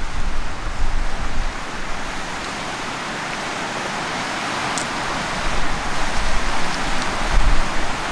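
Surf from small whitecapped waves washing on a cobble beach, a steady rushing hiss that swells and fades, with wind buffeting the microphone in low rumbles at the start and again near the end.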